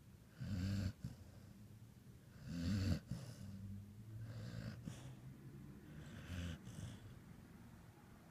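Snoring: two loud snores about two seconds apart, then quieter, drawn-out snoring breaths with another swell near the end.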